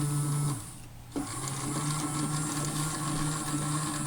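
Small electric motor of an AEG Electrolux Lavamat toy washing machine whirring as it turns the drum on its spin cycle; about half a second in it winds down and stops, then starts up again just over a second in and runs on with a slight pulse.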